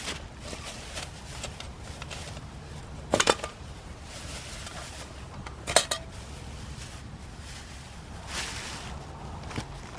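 Metal camp cookware clinking: two short bursts of sharp clinks, about three seconds in and again just before six seconds, each ringing briefly.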